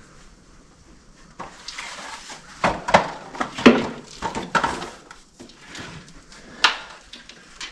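Scattered metallic clinks and knocks with rustling, from hands and a wrench working on the tractor's battery cables, the sharpest knocks about three and six and a half seconds in.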